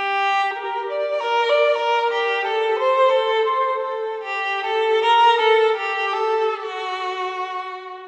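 Background music: a slow violin melody of held notes, fading out near the end.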